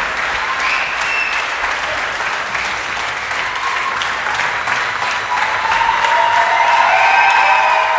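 Large concert audience applauding steadily, swelling a little louder near the end.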